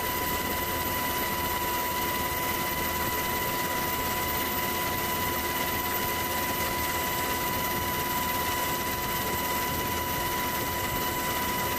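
Steady drone of the camera helicopter's turbine engine and rotor, with a constant high whine that never changes in pitch.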